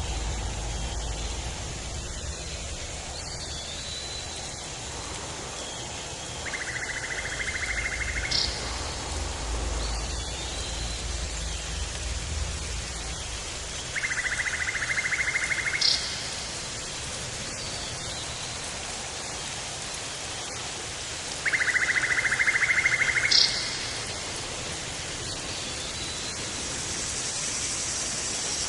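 Tropical forest ambience: a rapid, buzzy trill from an insect or bird, about two seconds long and repeated four times at even intervals, each ending in a brief high note. It sits over a steady hiss, with faint short bird chirps and a low rumble in the first half.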